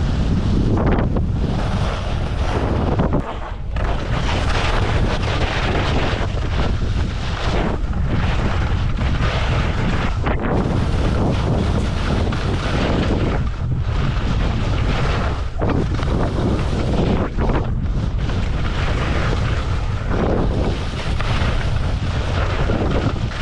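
Heavy wind buffeting the microphone of a fast-moving camera, a low rumble under a rushing hiss that swells and drops every second or two.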